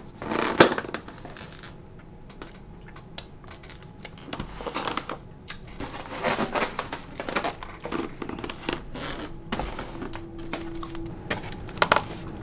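Plastic takeout bags rustling and crinkling, with irregular clicks and scrapes as a styrofoam clamshell food container is handled.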